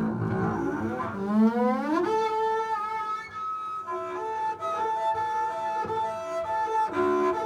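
Bowed string instrument playing improvised held notes. About a second in it slides up in pitch, then it plays a slow melody of sustained notes higher up.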